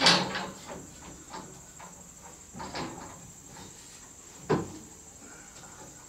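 Knocks and clanks from a metal scaffold frame as a man climbs up onto it: a loud knock at the start, another near three seconds in and a sharp one at about four and a half seconds, with a few lighter taps between. Crickets chirr steadily and high-pitched throughout.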